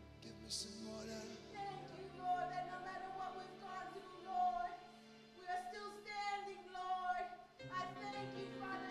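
A woman singing a slow worship song over long held backing chords; the chords change near the end.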